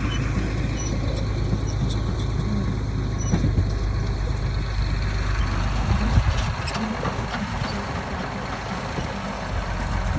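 Engine of an old bulldozer running steadily, with a few short knocks; its low hum drops off about six seconds in.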